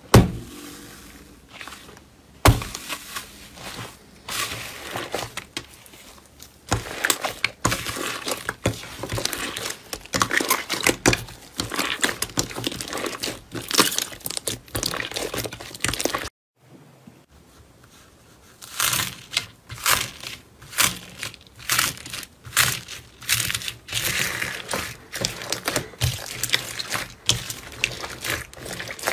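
Hands pressing, squeezing and kneading soft slime, giving a dense run of irregular sticky crackles and small pops. The sound breaks off briefly about halfway through, then resumes.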